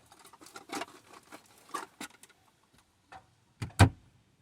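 Utensils and dishes being handled in a small room: a run of small clicks and taps, then one sharp knock near the end.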